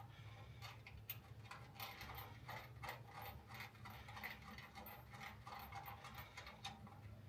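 Faint, irregular metal clicks and ticks as a bolt is fitted and tightened to hold a Jaguar MkII's bonnet in place.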